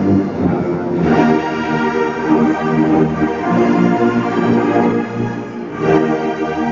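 A large church orchestra dominated by brass, with tubas and euphoniums, playing slow sustained chords.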